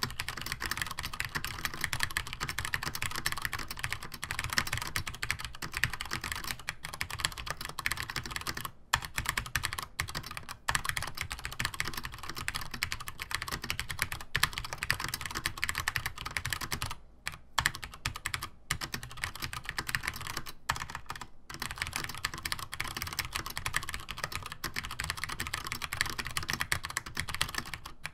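Typing on a Compaq-branded Cherry G80-1800 keyboard with vintage PCB-mounted Cherry MX Brown tactile switches and Cherry doubleshot keycaps: a dense, steady run of keystrokes broken by a few short pauses, the longest a little past halfway.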